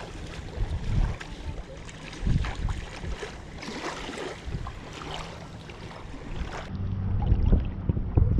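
Wind buffeting the microphone in uneven gusts, with scattered light clicks and knocks.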